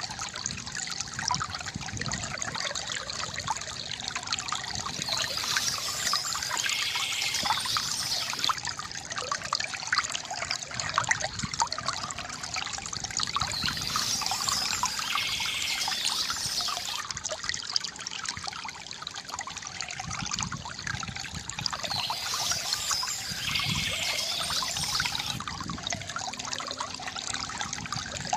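Water from a bamboo fountain trickling and gurgling steadily. A brighter, hissier stretch returns about every eight seconds.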